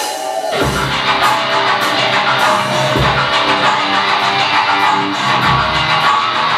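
Heavy metal band playing live: a held guitar note, then the full band comes in about half a second in with distorted electric guitars, bass and drums. Cymbals strike regularly throughout, and heavy low drum hits fall about every two and a half seconds.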